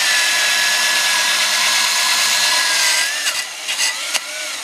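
Cordless drill spinning a carbon steel wire wheel brush against an aluminum boat propeller, scrubbing the metal clean. The motor's whine holds steady, then slows about three seconds in, followed by a few scrapes and a short second burst that stops suddenly at the end.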